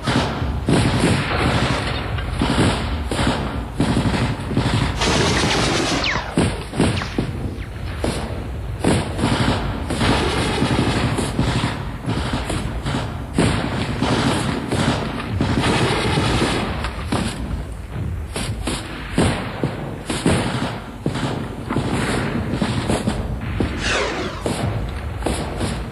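Assault rifles firing in a sustained exchange: dense, overlapping shots and short bursts from several guns at once, with irregular pauses.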